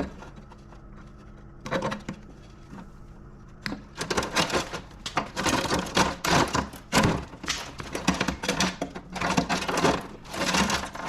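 Clattering and scraping of wiring and its plastic clips being pulled and worked loose inside a steel equipment control panel: fairly quiet at first with one short rattle, then a busy run of clicks, knocks and scrapes from about four seconds in, over a low steady hum.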